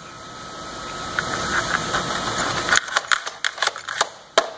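A steady machine noise that slowly grows louder, then stops about three seconds in, followed by a quick run of sharp metal clicks and clinks as a steel conveyor-chain link and dog bone are twisted and seated onto a conveyor roller.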